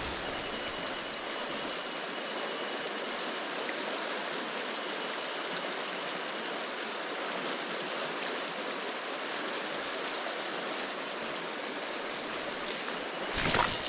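Steady rush of flowing river water, with a brief louder burst of noise near the end.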